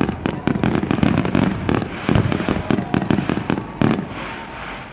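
Aerial fireworks bursting: a dense run of sharp crackling pops and bangs, with one louder bang near the end, after which the bursts die down.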